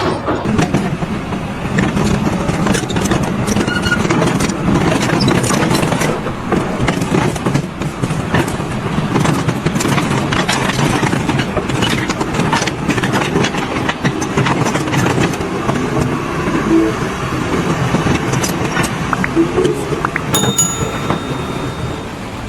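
Continuous loud rumbling machine noise with dense rattling and clattering knocks.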